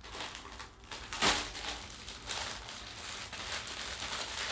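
Plastic mailer bag and plastic wrapping crinkling and rustling as they are handled and opened, with a louder crackle about a second in.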